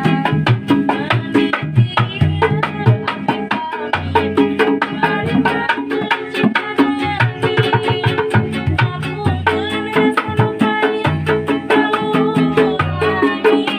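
Street buskers playing an upbeat tune, with hand drums keeping a busy beat under melodic instruments.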